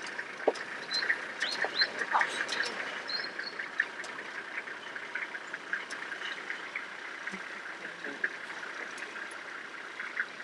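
Birds chirping and calling in a dense, steady chorus of short notes, with a few louder rising calls in the first few seconds.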